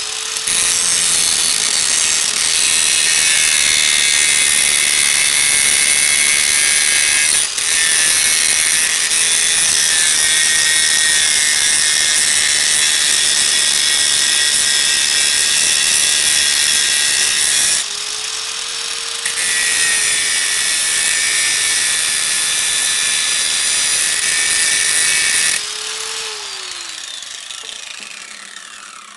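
Hand-held angle grinder grinding through the steel weld bead that joins a microwave oven transformer's base to its laminations: a steady motor whine under a loud, hissing grind. About 18 seconds in the disc comes off the metal for a second and a half and the motor runs free, then it grinds again until about 26 seconds, when the grinder is switched off and whines down.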